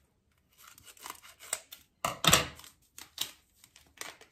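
Foil pouch of dry yeast being cut open with scissors and crinkled in the hand, with the loudest rustle about two seconds in as it is cut.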